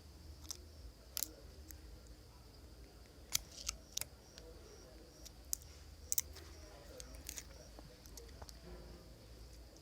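Scattered sharp clicks and snips of small tools and parts being handled during a phone repair, a few isolated ones with short pauses between them.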